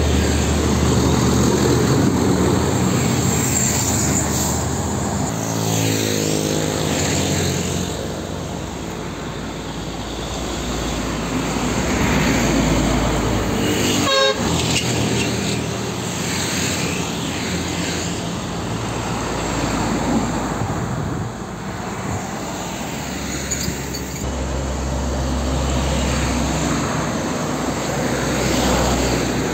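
Heavy diesel trucks driving past on a highway, their engines running with a low drone over steady road and traffic noise. The sound breaks off abruptly about fourteen seconds in and resumes with another truck passing.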